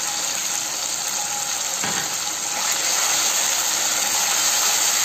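Capsicum and onion sizzling in hot oil in a kadai as soy sauce is poured in and the vegetables are stirred with a metal spatula. There is a single light knock about two seconds in, and the sizzle grows a little louder about three seconds in.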